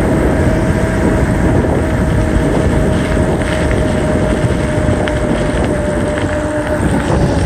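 Wind rushing hard over the microphone on a mountain bike descending a paved hill at high speed, with a steady hum running under it.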